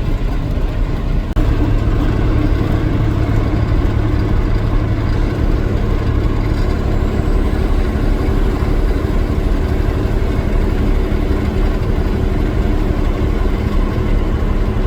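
A vehicle's engine and road noise, steady, heard from inside the cab while driving along the highway, with a steady low hum that settles in about a second and a half in.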